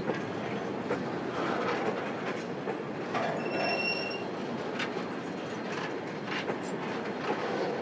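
Grain hopper wagons rolling slowly past: steel wheels rumbling and clicking over rail joints, with a brief high wheel squeal about three and a half seconds in.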